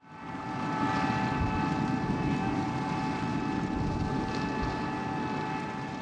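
Riecam RBM 230 self-propelled sugar beet harvester at work, its 9.5-litre air-cooled six-cylinder Deutz engine running steadily with a steady high whine over the engine noise. The sound fades in over the first second.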